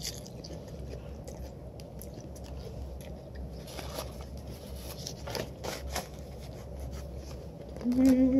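Close-up eating noises from a person at the microphone: a few scattered mouth clicks and smacks over a steady low hum, then a short hummed "mm" near the end.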